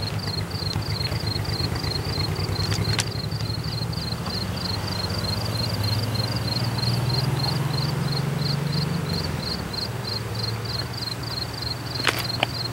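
Diesel engine of a CSX freight locomotive running as it approaches slowly. Its low drone swells in the middle and eases again near the end, over a steady, fast, pulsing chirp of insects.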